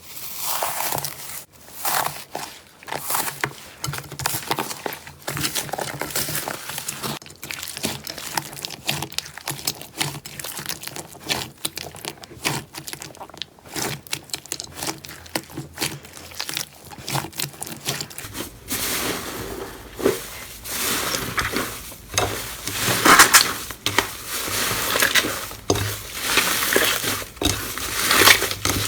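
Crunchy slime squeezed and pressed by hand, giving dense irregular crackling and crunching. About two-thirds of the way through it changes to louder, fuller crunches over a faint low hum.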